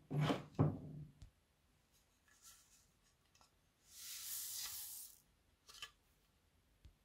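Small black beads poured from a ceramic dish into a glass bowl of liquid slime ingredients: a soft rushing patter lasting about a second, beginning about four seconds in. Two dull knocks come in the first second.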